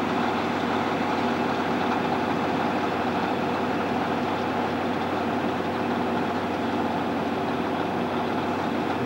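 A heavy engine running steadily at a constant speed: an even hum that holds one pitch, with a broad rumbling noise over it.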